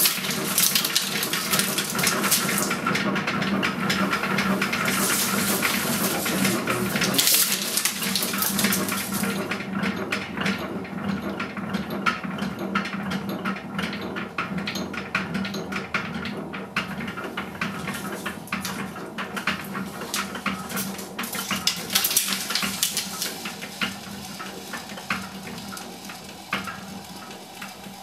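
Cinema film projector running, its reel spinning: a rushing whir with dense rapid clicking over a steady low hum. Loudest in the first few seconds, then gradually quieter.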